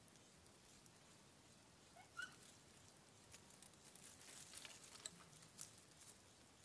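Faint, scattered ticks and rustles of marmosets scrambling through dry leaf litter and picking at a food bowl, with one short high chirp about two seconds in.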